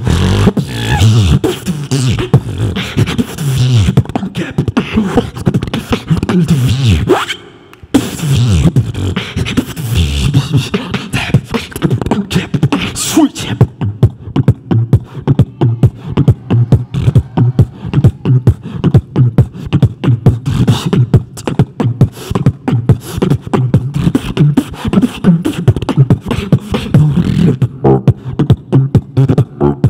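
Human beatboxing into a handheld microphone: dense vocal bass and percussion that drops out briefly about seven and a half seconds in, then settles into a fast, steady beat of sharp drum-like hits from about fourteen seconds on.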